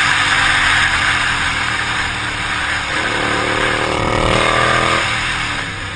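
Motorcycle riding at speed as heard from a helmet-mounted camera: steady wind noise over the microphone with the engine running underneath. The engine note is clearest from about three seconds in and falls away after about five seconds.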